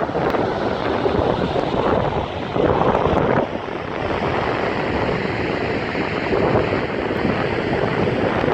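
Steady roar of a large waterfall, with wind buffeting the microphone and one stronger gust about three seconds in.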